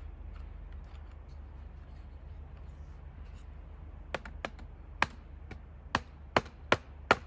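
Seven sharp taps of a tool knocking the guide track's holding cleat, unevenly spaced over the last three seconds, over a steady low hum.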